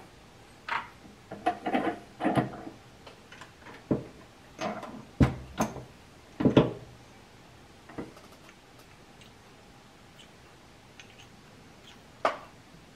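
Sharp clicks and light metallic clunks from a single-stage RCBS reloading press and brass cartridge cases being handled: a 350 Legend round with a cast bullet is set in the shell holder and the press handle is worked to taper-crimp the case mouth. The clicks come irregularly for the first several seconds, then after a quieter stretch there is one more tap near the end.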